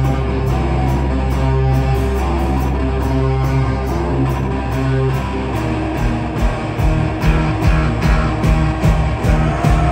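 Live band playing: electric guitar over a sustained low note, with the drums coming in about six seconds in and keeping a steady beat.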